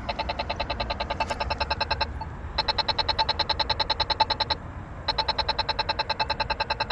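Polara iNS accessible pedestrian signal push button sounding its walk indication: a rapid tick at about ten ticks a second, in three runs of about two seconds each with short gaps between them.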